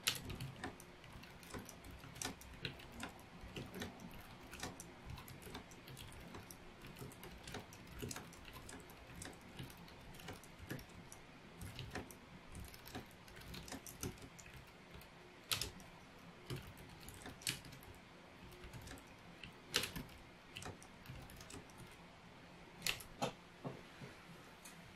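Fast touch-typing on a Logitech K780 wireless keyboard: a quiet, quick patter of keystrokes with an occasional louder key press, stopping about a second before the end.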